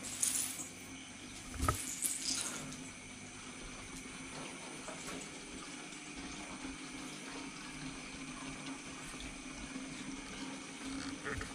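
Steady trickle and splash of water circulating in a planted aquarium, with a low steady hum under it. A soft thump and a few brief rustles come in the first few seconds.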